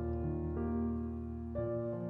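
Background music: soft piano chords, with a new note struck about every half-second to second.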